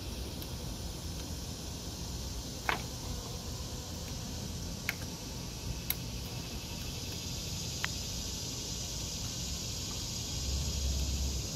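Four short, light clicks as a spark plug wire boot is pushed and snapped onto its terminal on the ignition coil pack, over a steady high hiss. A brief low hum comes in near the end.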